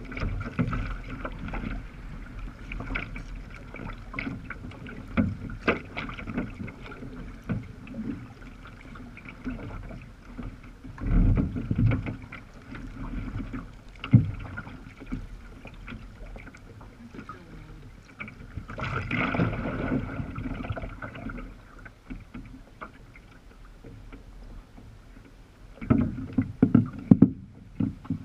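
Water sloshing and splashing against a sea kayak's hull as it is paddled along, with several louder splashes at irregular intervals.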